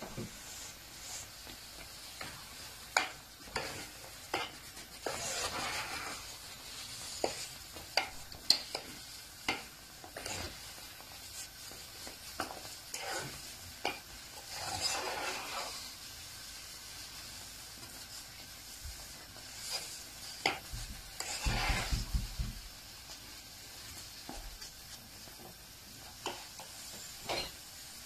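A metal spoon stirring thick semolina halwa in a pan on the stove: irregular clicks and knocks of the spoon against the pan, with a few longer scraping strokes, over a faint sizzle as the halwa cooks down and dries out.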